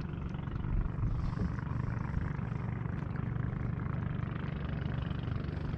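Outrigger boat's engine running steadily with a low, even hum.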